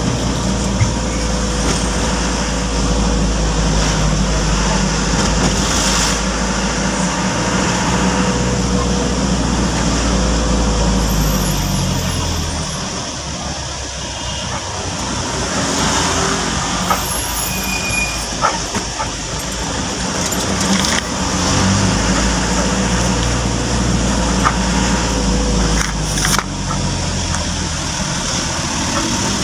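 Car engine and road noise heard from inside the cabin while driving, the engine note rising and falling with speed and easing off for a few seconds around the middle as the car slows.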